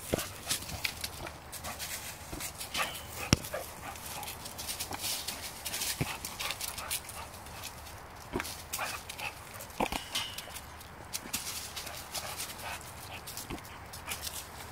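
A bulldog playing at a tetherball, its noises mixed with scuffling and crackling in dry leaves and many sharp knocks and taps. The loudest knock comes about three seconds in.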